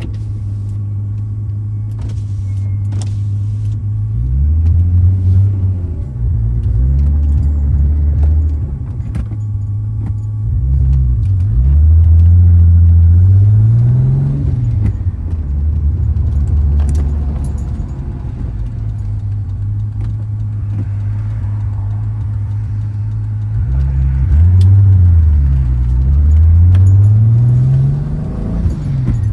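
Turbocharged VR6 engine and exhaust running, holding steady revs for long stretches and revving up and back down several times, around 5 s, 12 to 15 s and twice near the end.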